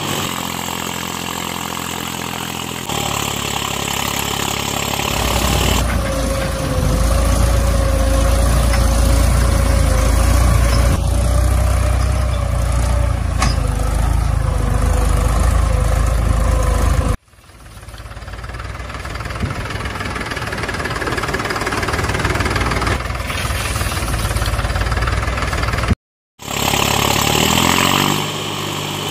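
Small engine of a homemade mini tractor running as it drives across a muddy field, growing louder and deeper after the first few seconds. The sound drops out abruptly twice and comes straight back.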